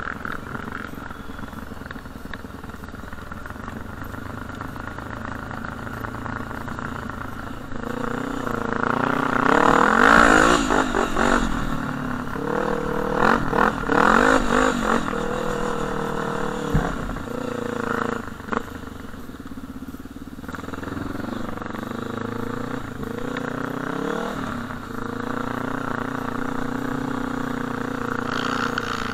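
Quad bike (ATV) engine running while riding, revving up and down several times partway through with its pitch rising and falling, and steadier at a lower pitch the rest of the time.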